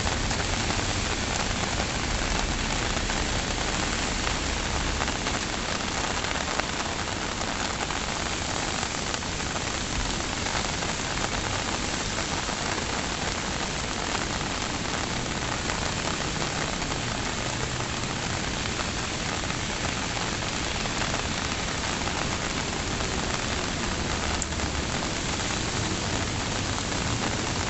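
Steady rain falling, a dense even hiss of drops hitting surfaces.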